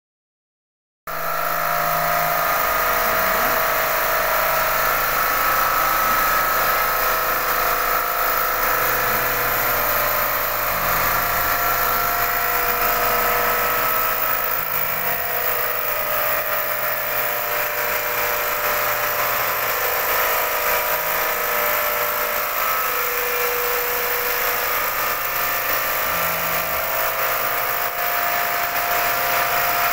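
Computerized single-needle quilting machine running, its needle head stitching a comforter in a steady mechanical whir that starts about a second in.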